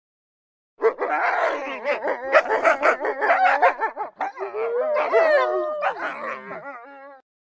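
A wolf pack howling and yipping in chorus, several wavering voices overlapping. It starts about a second in and tapers off near the end.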